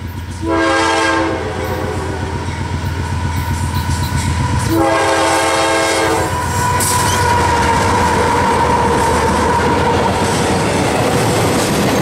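CSX freight train's diesel locomotives approaching and sounding the horn twice, a short blast about half a second in and a longer one about five seconds in, over a steady low engine rumble. As the locomotives pass, the engine drone and steel wheels rolling on the rail take over, with a steady high wheel squeal as the intermodal cars go by.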